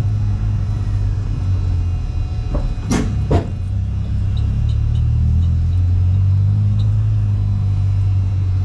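Volkswagen Saveiro pickup driving slowly: a steady low engine and road rumble heard from inside the cab, its pitch shifting slightly midway. Two sharp knocks come close together about three seconds in.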